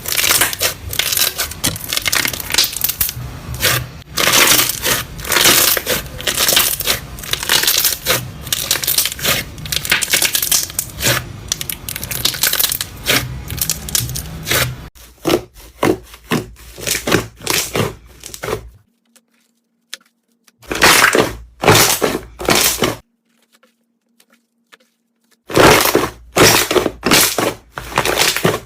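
Slime being squeezed and pressed by hand, giving dense crackling and popping. About halfway through the crackles thin out into short clusters with two silent pauses between them.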